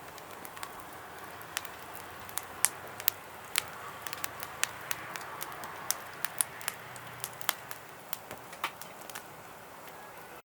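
Wood fire of cedar scrap lumber burning in a small compact grill, crackling with irregular sharp pops and snaps over a steady hiss. It cuts off suddenly near the end.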